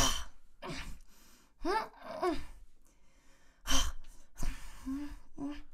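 A person straining with effort while pulling on a stuck cork: short breathy gasps and exhales mixed with a few brief strained grunts, in separate bursts.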